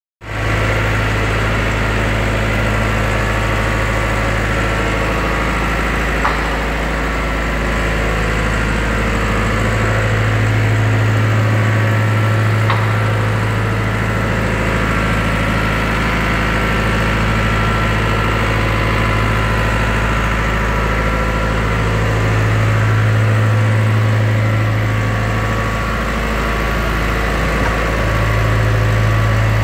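Caterpillar AP300 asphalt paver's diesel engine idling steadily, with a low hum that swells a little now and then.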